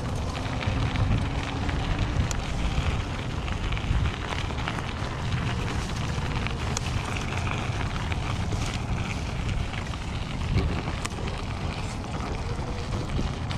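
Wind buffeting the microphone over the crackle of an e-bike's tyres rolling on a dirt and gravel path, with many small clicks from bumps.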